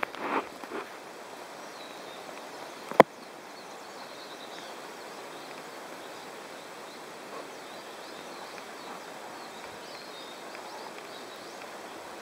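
Outdoor ambience: a steady background hiss with faint, scattered bird chirps, a few soft knocks at the very start and one sharp click about three seconds in.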